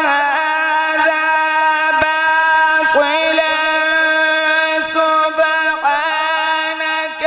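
Melodic Quran recitation (tilawat) by a male qari: he holds one long drawn-out note without a break, with ornamental turns in pitch near the start, about three seconds in and again about six seconds in.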